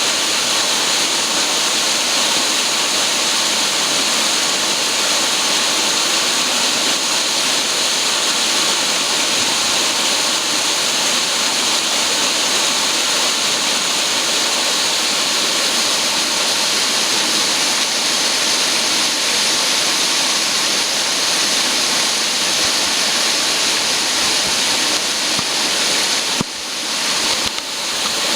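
Duct-cleaning vacuum cleaner running with a steady, loud rushing hiss, briefly dipping twice near the end.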